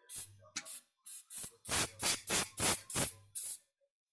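Aerosol gun-cleaning spray fired into a pistol magazine in about ten short hissing bursts, quick and close together, stopping shortly before the end.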